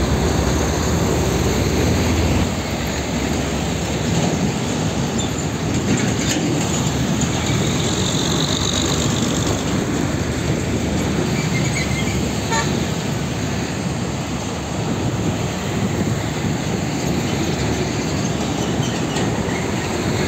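Heavy diesel trucks passing close by on a busy road: engines running under load, with tyre and road noise from the traffic.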